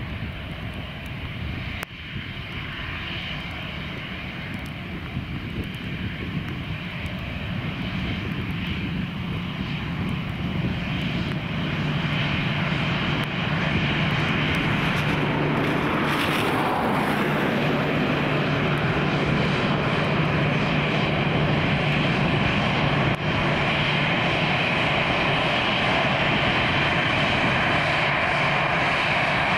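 Airbus A320's twin jet engines at taxi power, a steady hum and hiss that grows louder over the first dozen seconds as the airliner taxis closer, then holds steady.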